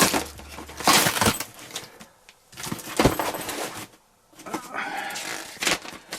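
Cardboard box being opened by hand, with flaps pulled back and the paper inside handled. It sounds as irregular rustles, scrapes and knocks with a couple of short pauses.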